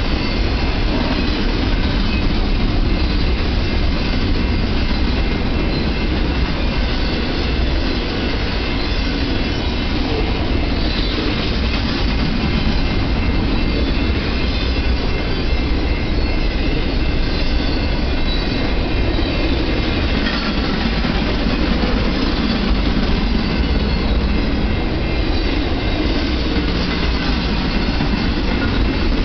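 BNSF double-stack intermodal freight train rolling past: steady rumble and clatter of the well cars' steel wheels on the rails.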